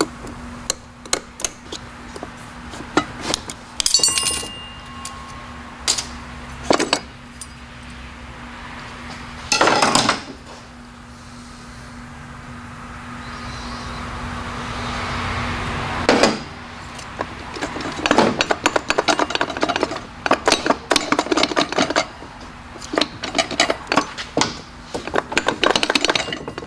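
Clinks, knocks and clatter of TH350 automatic-transmission internals being handled and pulled out of the case on a workbench, scattered at first and coming thick and fast in the last third. One clink about four seconds in rings briefly, and a faint steady hum runs under the first half.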